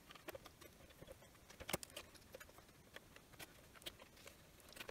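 Faint, scattered small clicks and rustles of wiring and plastic wire-to-board connectors being handled and plugged into a portable ultrasound scanner's circuit board, the sharpest click a little under two seconds in.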